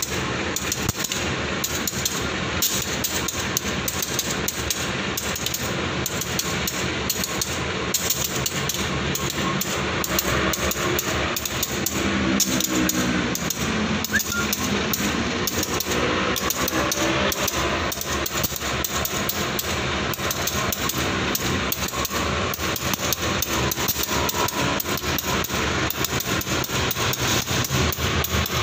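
Rapid, steady mechanical knocking of a diesel engine running close by. A low engine drone swells and fades around the middle.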